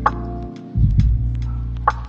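Background music: sustained bass and chord notes with sharp percussion hits.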